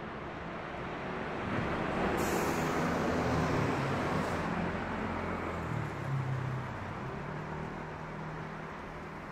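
A motor vehicle passing close by on a city street: its engine hum and tyre noise swell over the first few seconds, then fade away.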